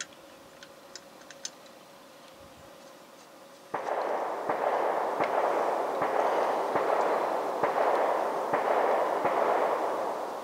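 Distant gunfire from a gun club. About four seconds in, a rapid string of shots begins and merges into a continuous rolling rumble, with a sharp report standing out about every second. A few faint clicks come before it.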